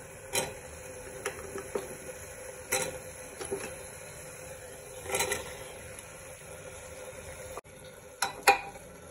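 Steel ladle clinking and scraping against the sides of an aluminium pressure cooker as cubed potatoes are stirred into frying masala. The knocks come at irregular intervals, and the loudest is near the end, over a steady low hiss.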